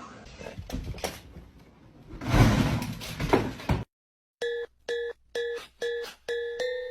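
A loud, noisy rush of sound lasting about a second and a half, followed by an abrupt cut. Then a run of short repeated electronic beep-like tones, about two a second, which lead into music.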